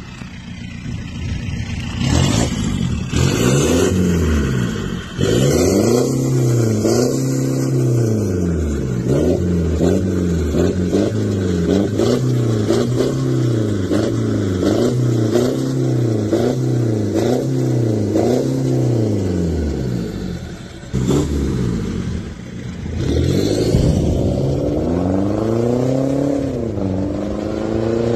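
BMW 320d four-cylinder diesel with a downpipe and resonator delete, revved over and over in quick blips, about one a second. Near the end it accelerates hard, the pitch climbing, dropping once at a gear change and climbing again.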